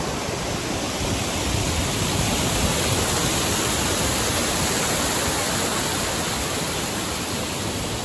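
Water rushing steadily over a small rocky cascade, a close, even rush of falling water that swells a little in the middle.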